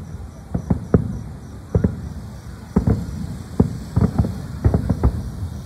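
Aerial firework shells bursting: about a dozen sharp bangs at irregular intervals, some coming in quick clusters of two or three.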